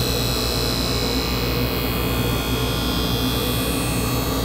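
Skate-sharpening machine's grinding wheel running over a steady motor hum, with an even grinding hiss as a hockey skate blade is drawn slowly along the wheel in one continuous sharpening pass.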